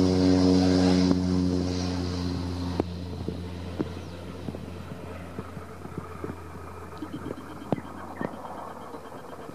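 Single-engine turboprop of a Cessna Caravan at takeoff power: a steady propeller drone with a strong hum that fades away over the first three seconds as the aircraft rolls off down the runway, leaving a faint hiss with scattered light ticks.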